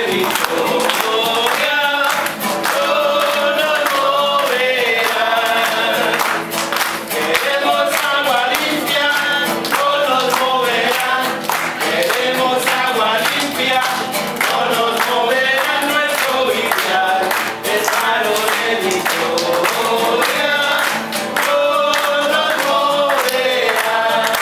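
A group of voices singing together, with hand clapping running through the song.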